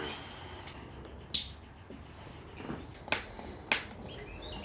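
A few sharp clicks and snaps of parts and tools being handled. Three stand out, about a second and a half in, at about three seconds, and just after that.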